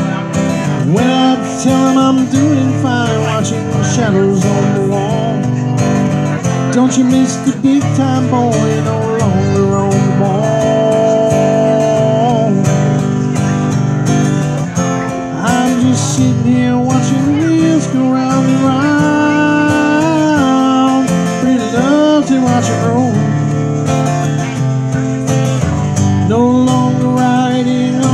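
Live acoustic guitar, strummed and picked, with a man singing into a microphone over it.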